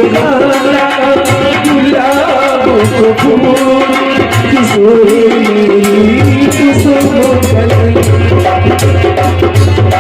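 Hindi devotional bhajan music: tabla-led hand drumming in a steady, fast rhythm under a wavering melodic lead line, with a heavy bass part coming back in about six seconds in.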